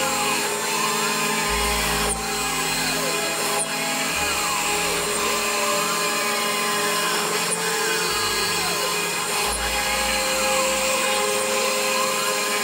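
CNC router spindle running steadily while a small bit carves an end-grain wooden cutting board, with a whine that repeatedly rises and falls in pitch as the cutter moves across the wood.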